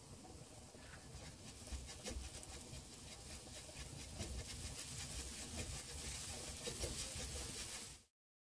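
A silicone spatula stirring and scraping small fried sweet potato bits and granulated sugar around a nonstick frying pan, with a fine crackle throughout, as the sugar is worked in to caramelise. The sound cuts off suddenly near the end.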